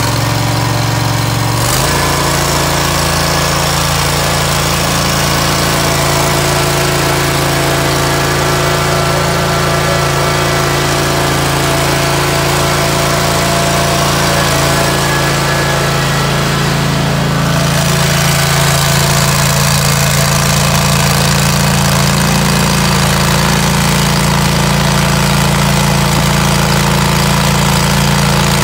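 Kawasaki FX730V V-twin gas engine of a Toro STX-26 walk-behind stump grinder running steadily. Its pitch shifts about two seconds in and changes again about halfway through, where it grows slightly louder.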